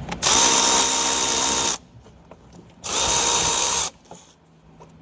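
Cordless power tool spinning a socket in two bursts, one of about a second and a half and one of about a second, with a steady motor whine, loosening bolts on the engine.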